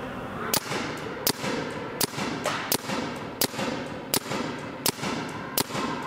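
Planet Eclipse GSL paintball marker firing a steady string of single shots, about eight of them, one every 0.7 seconds or so, each with a short echo.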